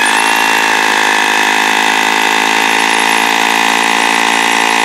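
Hammer drill boring a hole into soft, powdery concrete with a masonry bit. The motor runs at a steady pitch under load.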